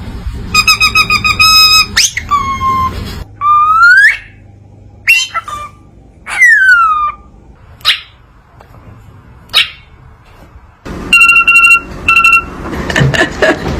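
Parrot whistling: a fast run of short repeated notes, then a long rising whistle, a long falling whistle, a few short sharp chirps, and two more short bursts of repeated notes near the end.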